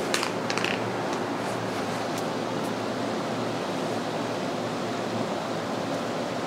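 Steady, even hiss of background noise, with a few faint clicks in the first second.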